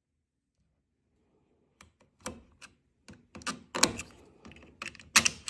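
Hand tools working a broken screw stuck in a door hinge: a run of irregular sharp clicks and taps that starts after nearly two seconds of quiet, with the loudest knocks towards the end.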